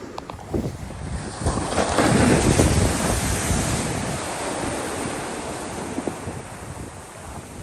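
Surf breaking on the shore, with wind buffeting the microphone as a low rumble. The wash swells about a second in, is loudest around two to three seconds in, then slowly fades.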